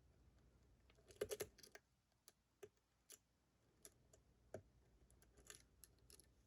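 Faint, scattered metallic clicks of a lock pick working the pins of a seven-pin lock under tension: a quick cluster about a second in, then single clicks spaced out through the rest.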